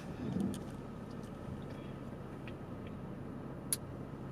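Car engine idling, heard inside the cabin as a steady low hum, with a few faint clicks and one sharper click near the end.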